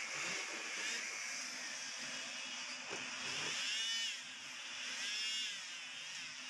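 Steam wand frothing milk in a small clay cup: a steady hiss, with a whistling squeal that rises and falls twice near the end as the milk foams.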